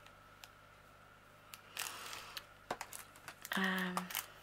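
Handling of small plastic bags and parts: a few light clicks, a short plastic rustle about two seconds in, then a sharp click, followed near the end by a brief low hum lasting about half a second.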